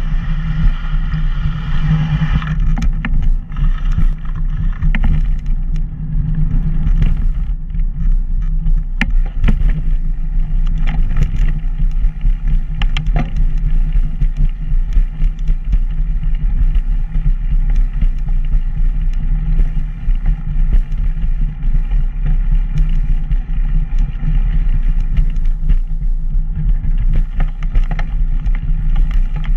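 Steady low rumble and wind on a moving camera as it rides along a paved sidewalk path, with many small clicks and rattles from the mount over the pavement. A car passes close by near the start.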